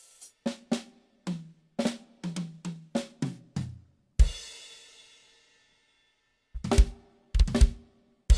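Acoustic drum kit played solo. A quick fill runs down the toms from high to low and lands on a crash cymbal with the bass drum, which rings out. After a pause, a few hard kick-and-snare accents lead to another crash near the end.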